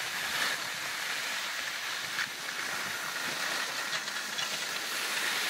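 Skis sliding over packed snow, a steady hiss and scrape.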